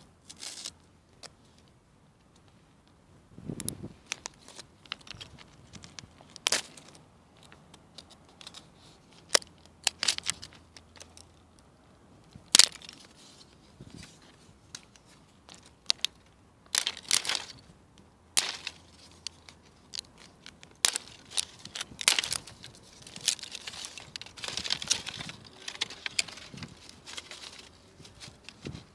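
Loose gravel stones and dry plant stems handled by hand: scattered sharp clicks, knocks and crackles at an irregular pace, with quiet gaps between them. A denser stretch of rustling crackle comes a little before the end.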